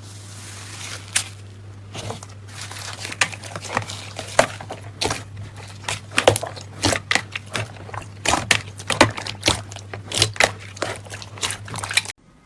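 Slime being worked by hand, giving many irregular crackling pops and clicks over a steady low hum.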